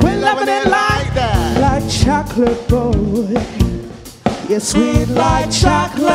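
Live party band playing an upbeat pop song: a singer's voice over a drum kit's steady beat.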